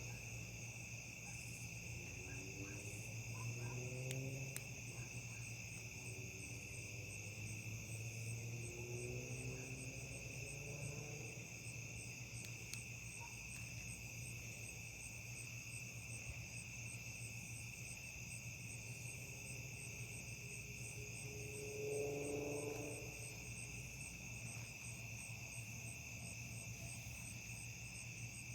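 Night insects, crickets, chirping in a steady high trill with a fast regular pulsing above it. A low steady hum lies underneath, and a brief pitched call stands out about two-thirds of the way through.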